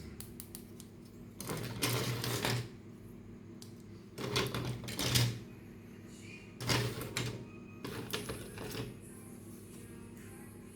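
Plastic toy parts and packaging being handled, in four short bursts of clicking and rattling, over soft background music.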